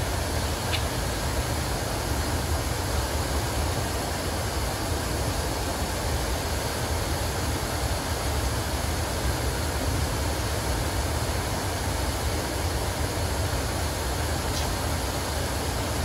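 Steady low rumble and rushing air of a running Trane 90-ton rooftop HVAC unit, its fans moving air through the ductwork, with a couple of faint metallic ticks near the start and near the end.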